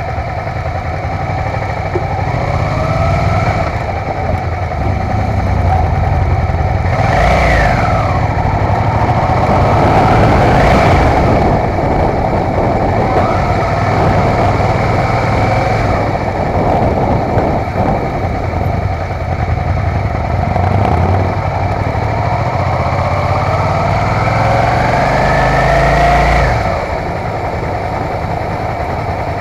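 Motorcycle engine running while riding in town traffic, its pitch rising several times as it accelerates. Near the end a long climb in pitch cuts off as the throttle is closed.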